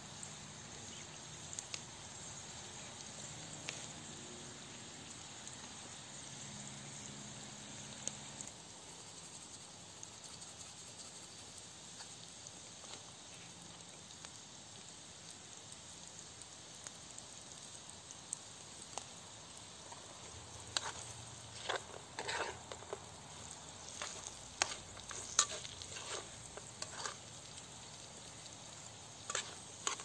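Potato sticks frying in oil in an aluminium pan over a wood fire, with a steady sizzling hiss. In the last third, a spoon scrapes and knocks against the pan as the potatoes are stirred.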